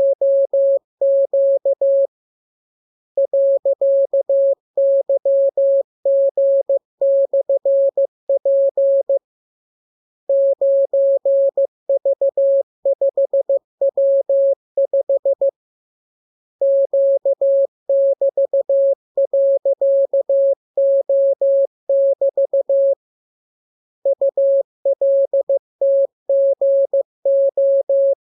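Morse code practice transmission: a single steady beep keyed on and off in dots and dashes, sent in groups of characters with pauses of about a second between them.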